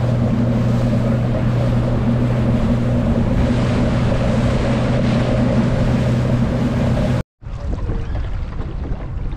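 Fishing boat's motor running steadily at speed, with wind and water rushing past. About seven seconds in, the sound cuts out for a moment, then only quieter wind and water noise remain, without the motor's hum.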